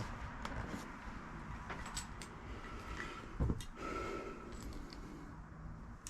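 Faint handling noises of plastic parts and cables: scattered small clicks and ticks, with a soft thump about three and a half seconds in.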